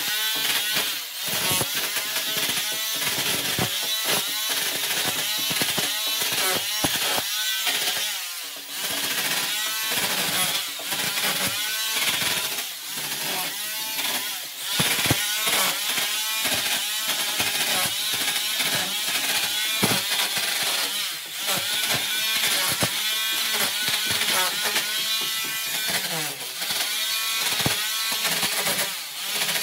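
Electric rotary hammer with a chisel bit hammering old plaster off a brick wall. It runs continuously with a few brief pauses.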